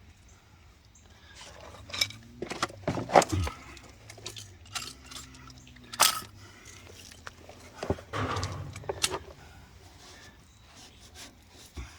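Hand work on plumbing fittings: metal parts and tools clinking and scraping, with a series of sharp knocks, the loudest about three seconds in and again about six seconds in.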